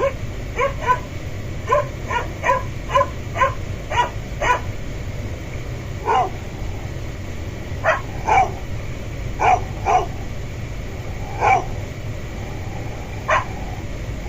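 A dog barking repeatedly. Quick short barks come about two a second for the first few seconds, then single or paired barks a second or two apart.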